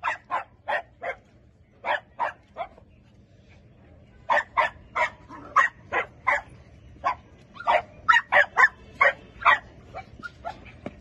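A dog barking repeatedly in quick runs of short barks, with brief pauses between runs and fainter barks near the end.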